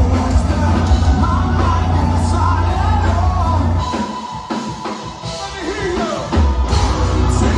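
Live metal band playing through a club PA, recorded from the crowd: distorted guitars, bass and drums with a male singer. About four seconds in the bass and drums drop away for a couple of seconds, leaving the voice and higher instruments, then the full band comes back in.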